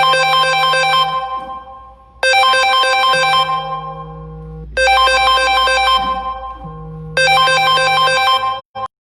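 Phone ringtone: a short electronic melody repeated four times, about every two and a half seconds, then cut off suddenly near the end.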